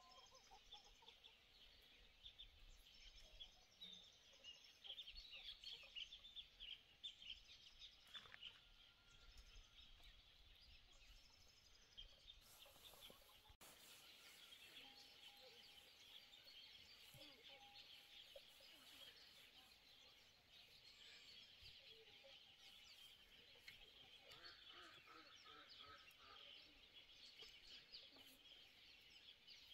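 Chickens clucking and peeping faintly, a steady chatter of short high calls throughout with an occasional lower cluck.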